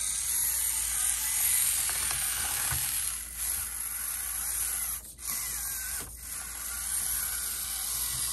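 Basher Rocksta 1/24-scale mini rock crawler's electric motor and gearbox whining as it climbs, the pitch rising and falling with the throttle, cutting out briefly twice past the middle.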